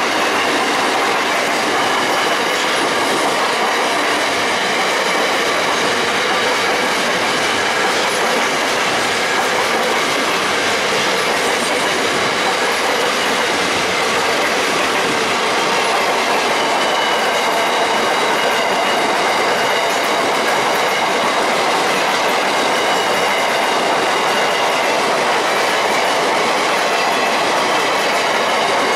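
Container freight train wagons rolling past at speed, a steady loud rumble of steel wheels on rail with clickety-clack over the rail joints, and a faint steady high-pitched squeal from the wheels.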